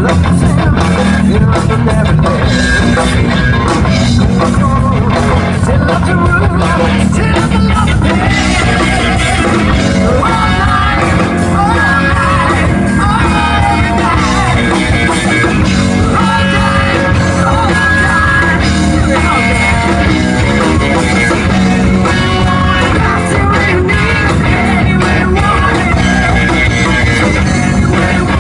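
Live rock band playing loudly on electric guitars, bass and drum kit, with a singer's voice coming in about eight seconds in.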